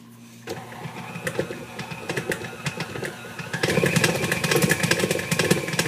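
KitchenAid stand mixer running, its beater working through stiff cookie dough with a rapid clattering rattle. It starts about half a second in and gets louder about three and a half seconds in.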